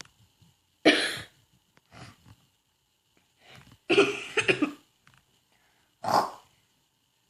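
A person coughing while covering the cough: a single hard cough about a second in, a softer one after it, a quick run of several coughs around the middle and one last cough near the end. The coughing is from throat irritation, which the person puts down to pollen.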